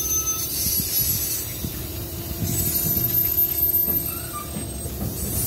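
Amtrak Superliner passenger cars rolling past on curved track: a steady rumble and knocking of wheels on the rails, with a thin wheel squeal from the curve.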